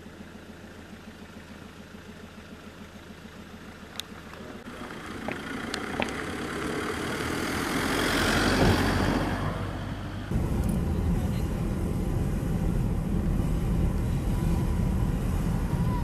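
Motor vehicle sounds: a low engine hum, then a vehicle passing, its noise swelling and fading over a few seconds, then an abrupt change about ten seconds in to a louder, steady low engine rumble.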